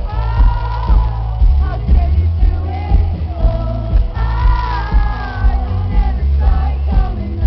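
Live rock band playing a slow song, a female lead singer's sustained sung lines over heavy bass and a steady drum beat, recorded from within the festival crowd.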